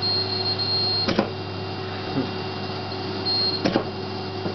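Dental laser welder humming steadily, with two sharp clicks about two and a half seconds apart as single laser pulses fire on the implant bar. A faint high tone comes and goes.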